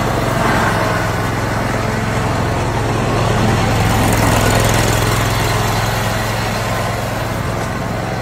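Zero-turn riding lawn mower's engine running steadily as the mower drives along, a low even hum that swells slightly about four seconds in.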